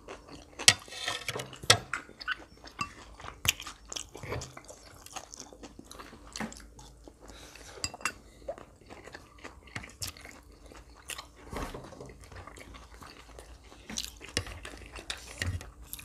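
Two people chewing mouthfuls of grilled pork salad and crisp raw vegetables and herbs, with many irregular wet crunches and mouth clicks; the loudest crunches come about a second in.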